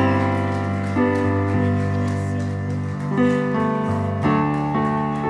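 Music: a keyboard playing sustained chords over low notes, striking in suddenly and changing about once a second.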